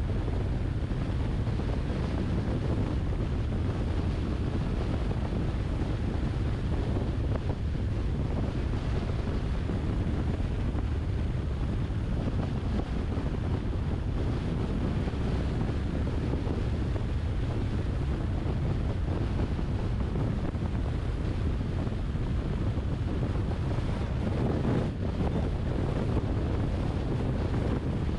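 Steady rushing wind and road noise of a car driving at speed, with wind buffeting the microphone.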